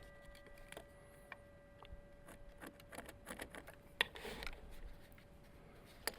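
Faint, scattered clicks, taps and rustles of light handling of tools and boards, with a sharper click about four seconds in, over a faint steady hum that stops near the end.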